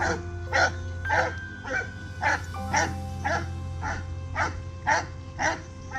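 Treeing walker coonhound barking over and over, about two barks a second, during a compulsive (OCD) spinning episode, over background music.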